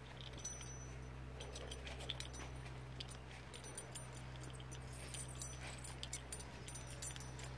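Pigs snoring, with scattered light clicks over a steady low hum.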